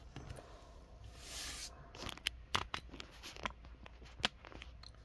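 Faint handling sounds of a plastic action figure and its packaging: a short rustle about a second in, then several sharp clicks and taps as the figure is handled and stood on the tabletop.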